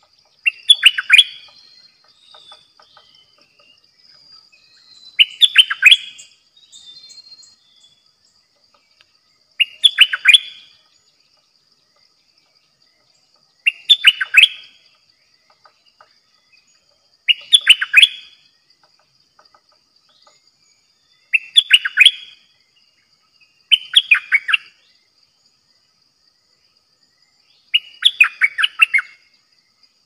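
A caged stripe-throated bulbul decoy sings eight short phrases of quick notes, one about every three to four seconds. A faint steady high hiss runs underneath.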